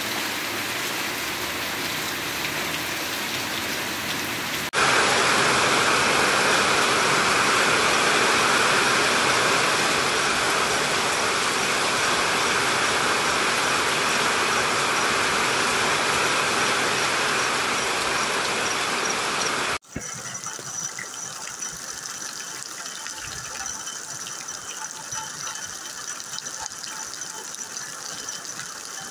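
Heavy rain falling, in three separate recordings joined by sudden cuts. A steady downpour gives way, about five seconds in, to a louder, fuller hiss of rain for some fifteen seconds. Then comes a quieter wash of water with a steady high tone and fast clicking over it.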